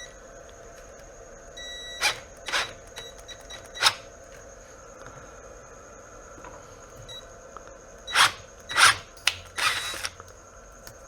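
Power drill boring out the holes in a kayak-motor mounting plate held in a vise, run in short bursts: a faint high whine, then sharp bursts about two, two and a half and four seconds in and a cluster from about eight to ten seconds.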